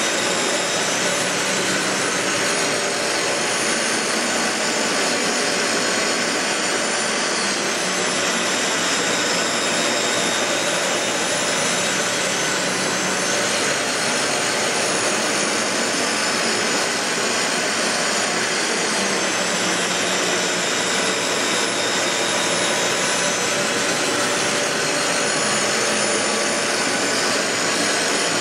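Dyson DC15 Ball Animal bagless upright vacuum cleaner running steadily: an even rushing of air with a faint high whine that wavers slightly in pitch.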